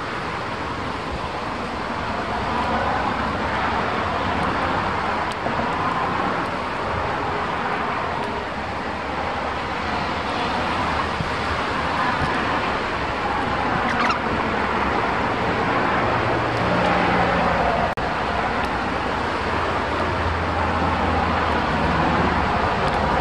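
Strong wind gusting across the microphone: a steady rushing noise with a low rumble that swells and eases every few seconds.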